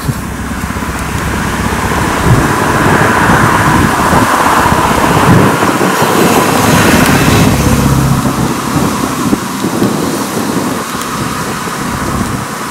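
Road traffic: a lorry and other vehicles running on the road, heard as a loud, steady rumble with hiss.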